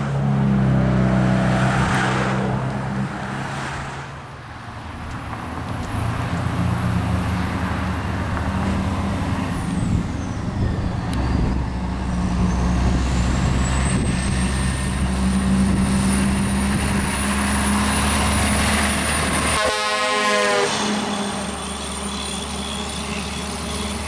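Air horn on a passing semi truck, a loud chord of several notes held in long blasts, over the truck's engine and road noise.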